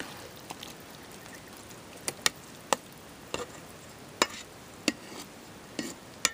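A spoon stirring a wet bread-and-egg mixture in a metal mixing bowl. About eight sharp clinks come as the spoon knocks the side of the bowl, irregularly spaced and mostly in the second half.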